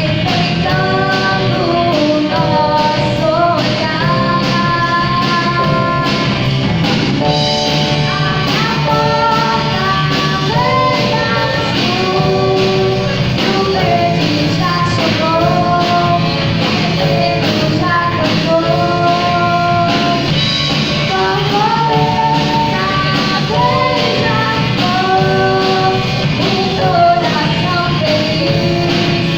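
A band playing a pop-rock song: a sung lead vocal over guitar, bass and a steady drum beat.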